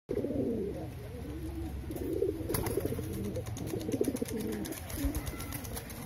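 Domestic pigeons cooing: repeated wavering coos of a cock pigeon courting and driving a newly paired hen. Wings flap near the end.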